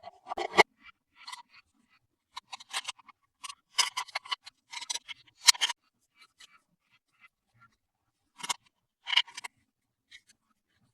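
Small plastic toys and their packaging handled up close: irregular taps, clicks and rustles in short clusters with brief pauses between them.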